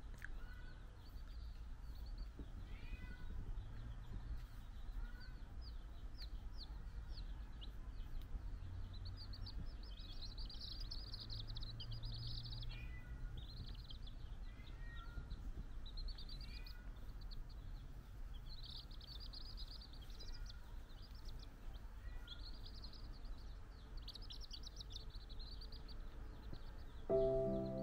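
A brood of domestic chicks peeping, with repeated bursts of rapid high cheeps and short falling peeps, over a steady low hum. Music starts just before the end.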